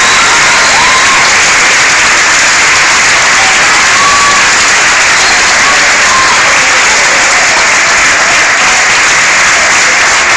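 Audience applauding loudly and steadily, with a few brief whistles or calls standing out.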